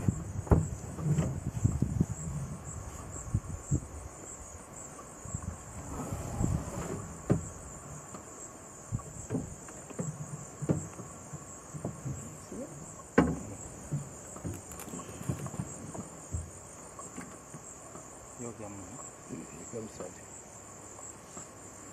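Steady, shrill insect chorus, with scattered soft knocks and thumps, the sharpest about half a second in and about 13 seconds in.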